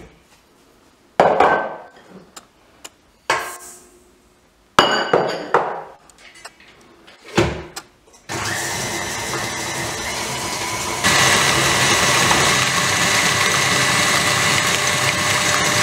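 A few knocks and clatters as the KitchenAid Artisan stand mixer's beater and head are handled, then about eight seconds in the mixer motor starts and runs steadily, beating margarine and sugar; a few seconds later it steps up to a higher, louder speed. This is the creaming stage, beating the fat and sugar until pale and fluffy.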